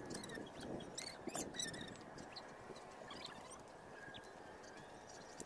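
Faint short chirps of small birds, mostly in the first two seconds, over quiet outdoor background noise.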